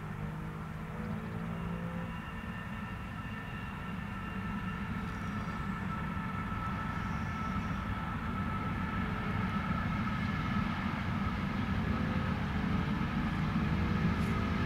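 Freight train rolling past at a distance, its wagon wheels on the rails making a steady rumble that slowly grows louder, with several steady high whining tones above it.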